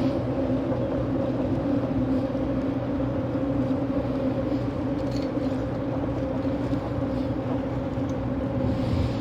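Fishing boat's engine running steadily under way, a constant low drone with a steady hum.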